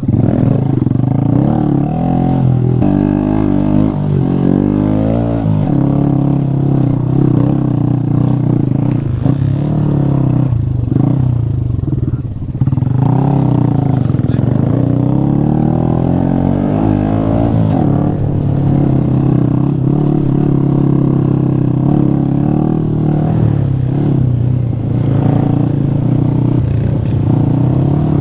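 Honda Grom-type 125cc single-cylinder minibike engine under way on a rough trail, its pitch rising and falling with the throttle. The engine note dips briefly about twelve seconds in.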